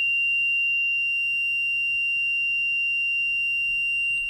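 A steady, high-pitched electronic alarm tone, held without a break.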